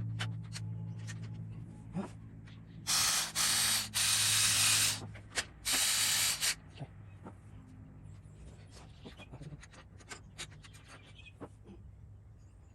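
Five loud bursts of hissing between about three and six and a half seconds in, among faint clicks and taps of small parts being handled while a door lock is worked on.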